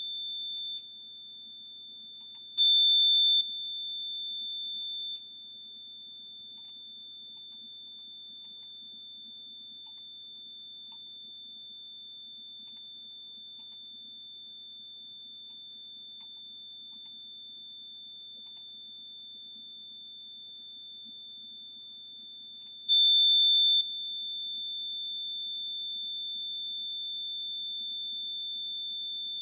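Steady 3,554 Hz sine test tone from signal-generator software, its level stepping up and down: it drops about 5 seconds in, stays low until a jump louder a little after 22 seconds, then settles a step lower. Faint short clicks sound now and then in the first two-thirds.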